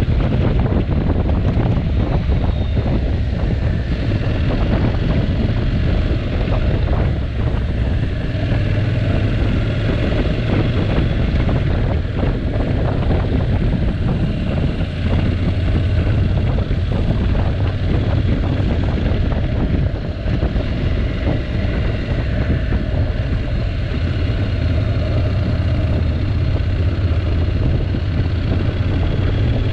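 Wind buffeting the microphone of a moving motorcycle, a steady low rumble, with the Honda NC750X's parallel-twin engine running underneath it.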